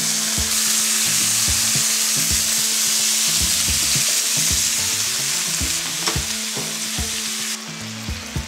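Veal and vegetables sizzling in hot oil in a frying pan, stirred with a wooden spatula, with a few clicks of the spatula against the pan. The sizzle drops to a quieter level near the end.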